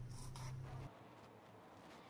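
Small kitchen knife slicing a tomato on a wooden chopping board: a few light strokes against the board over a low hum, then both stop abruptly about a second in.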